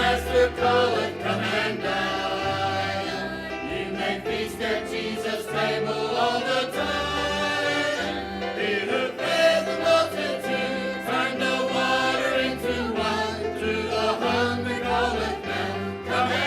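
Choral music with voices singing over a bass line, in the manner of gospel or church music.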